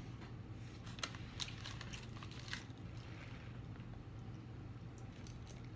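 Quiet eating sounds: scattered small clicks and smacks of chewing.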